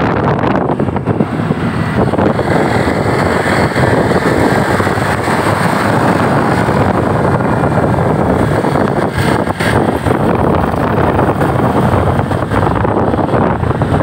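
Loud, steady rush of wind buffeting the microphone, mixed with the running noise of a moving road vehicle.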